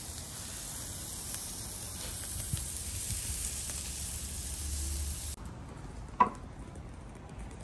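Steaks sizzling on the hot grate of a charcoal kettle grill, a steady hiss of searing meat. About five seconds in the sizzle cuts off abruptly, and a single sharp knock follows a moment later.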